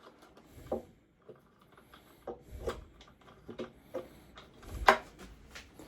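Scattered light clicks and taps of hand tools and small metal parts being handled while a pit bike is taken apart, with one sharper knock near the end.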